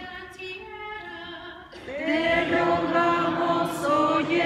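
A group of voices singing together, unaccompanied. The singing swells much louder about two seconds in.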